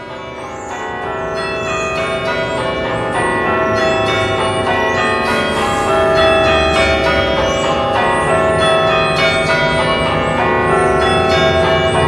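A cathedral's chime of eleven tower bells ringing, played from a keyboard. Many struck notes overlap and hum on into one another, swelling up over the first few seconds and then holding steady.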